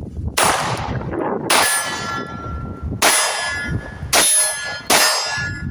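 Steel targets struck five times at uneven intervals, each hit a sharp metallic clang that rings on for about a second.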